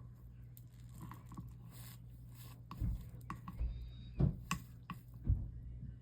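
A few light knocks and scrapes of handling work at a bench, over a steady low hum.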